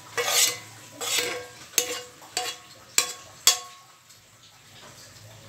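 A metal spatula scraping a frying pan and knocking against the pans: two scrapes, then four sharp knocks that ring, over about three and a half seconds, with a faint sizzle under them.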